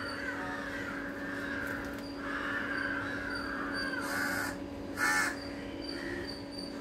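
Crows cawing: two long, drawn-out harsh caws in the first four seconds, then a louder short call about five seconds in. A steady low hum runs underneath.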